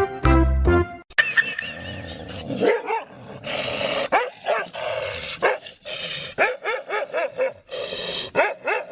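A dog barking repeatedly in a long run of short calls that rise and fall in pitch, following the end of a music cue about a second in.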